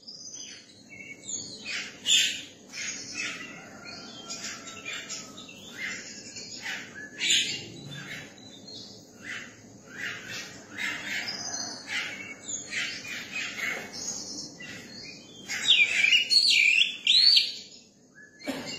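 A young oriental magpie-robin singing: a long, varied run of quick chirps and short whistled notes, with louder swooping whistled phrases near the end.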